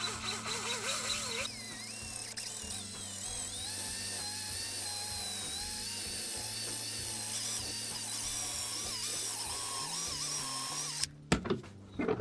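DeWalt 18V cordless drill boring a long thin bit into a wooden handle, its motor whine wavering in pitch as the bit loads up in the wood. The drill stops suddenly near the end, followed by a couple of knocks.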